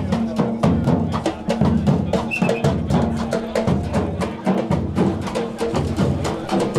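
Percussion group drumming a fast, busy rhythm on large bass drums and smaller drums, with many rapid strokes over a deep, ringing low end.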